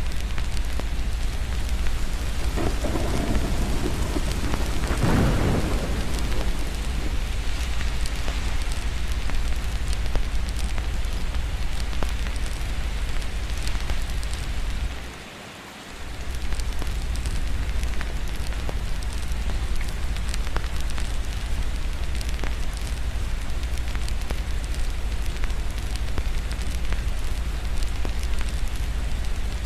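Steady rain with a low rumble underneath, and a roll of thunder that builds about two and a half seconds in and peaks around five seconds. The whole sound dips briefly about halfway through.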